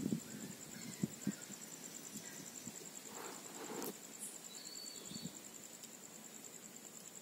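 Crickets chirping in a steady, fast high pulse throughout, with a few low thumps in the first second and a half and a brief scuffling rustle with a sharp click a little after three seconds, as puppies play on bare earth.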